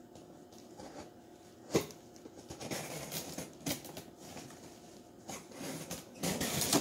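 A cardboard box being worked open by hand: cardboard scraping and rustling with a few sharp knocks, one strong one about two seconds in, the scraping loudest near the end.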